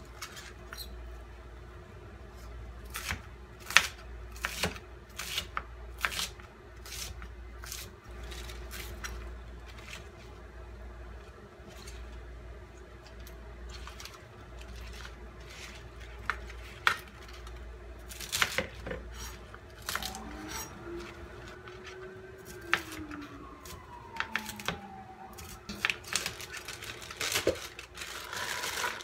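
Kitchen knife chopping vegetables (cabbage, spinach, apple) on a plastic cutting board: irregular sharp knocks of the blade striking the board, over a steady low hum.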